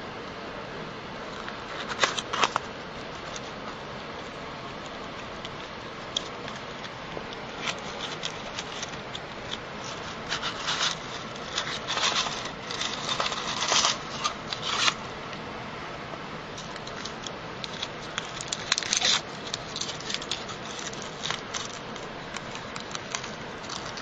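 Foil wrappers of Ferrero Rocher chocolates crinkling as they are unwrapped by hand, in scattered bursts that are busiest around the middle, over a steady hiss.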